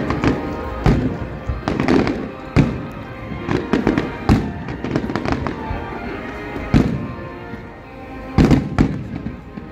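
Aerial firework shells exploding with loud bangs, about a dozen at irregular intervals, with a close cluster of the heaviest near the end. Music plays underneath.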